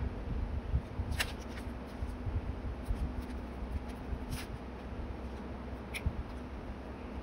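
Paper handling: hands rustling and smoothing journal pages and photos on a desk, with three light, sharp ticks spread through.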